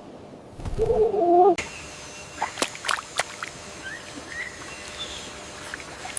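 A loud, wavering low animal call lasting about a second, then steady forest ambience with a quick run of sharp bird chirps and a few fainter chirps after.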